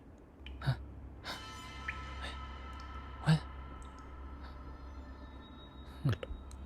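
Slow, irregular footsteps squelching on wet mud and slimy goo: about five steps, the loudest about three seconds in. Underneath, a low steady drone and held tones, like an ambient music bed.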